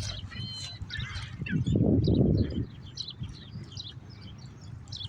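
Small birds chirping and twittering repeatedly, with a loud low rumbling swell for about a second starting a second and a half in.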